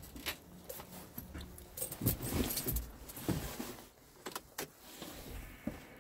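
Handling noise from someone moving about inside a truck cab: irregular rustling with light clicks and knocks, busiest around two to three seconds in.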